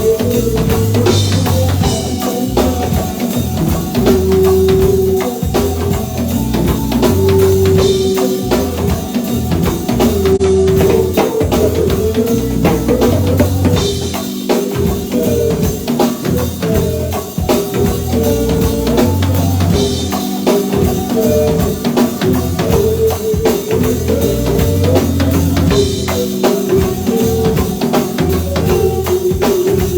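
A band playing an instrumental number: a drum kit keeps a steady beat under bass notes and a melody of held notes.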